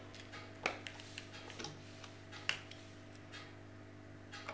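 Faint, sharp clicks and taps of small plastic parts as a Playmobil toy first-aid case is handled and opened, a few clicks a second or two apart.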